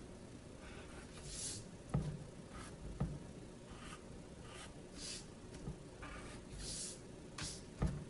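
Pencil scratching on paper in a series of short drawing strokes, with three soft low thumps among them.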